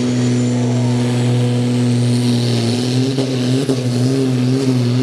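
Farm-class pulling tractor's diesel engine running flat out under heavy load as it drags a weight sled, a loud steady drone whose pitch wavers slightly in the second half. A faint high whine rises over the first couple of seconds.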